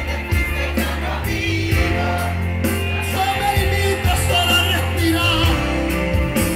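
Live band music with a singer, played loud through a sound system, over a steady bass line.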